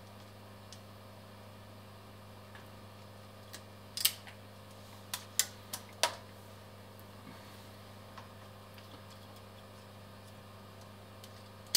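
A handful of sharp clicks from a hand wire stripper and ferrule crimping pliers as wire ends are worked, bunched about four to six seconds in, over a steady low hum.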